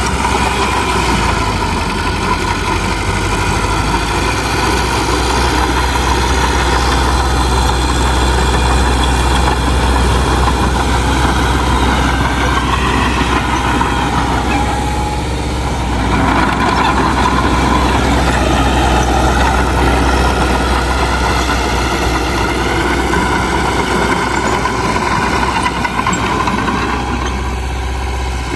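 Diesel engine of heavy earthmoving machinery running steadily, with a brief dip in level about halfway through.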